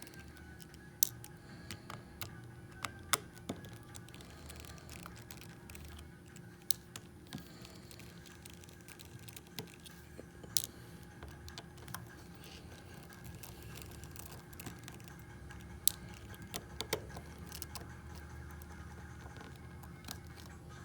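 Scattered small clicks and taps of tools and plastic parts as an LG G2 smartphone is taken apart, irregularly spaced, over a steady low hum.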